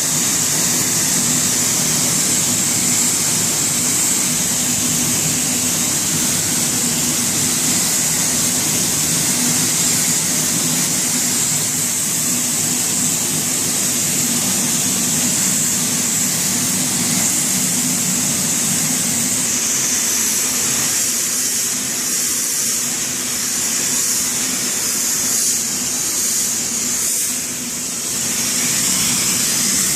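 Hot pressure washer running: a steady high hiss of the spray over the hum of its pump and motor, wavering briefly several times near the end.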